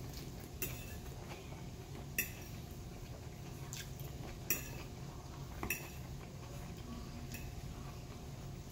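Metal fork clinking and scraping against a ceramic dinner plate while scooping food: a handful of sharp clinks a second or two apart, over a steady low hum.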